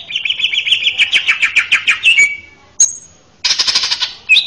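Male cucak ijo (green leafbird) singing. The song opens with a fast chattering trill of about nine notes a second lasting about two seconds, then a brief high whistle, then a second short rapid trill, and ends with a few loud whistled notes.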